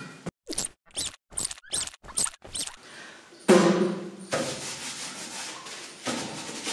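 Cartoon sound effects: about six short squeaky rubbing sounds, one after another with gaps between, then a louder, steady sound with low tones starting about three and a half seconds in.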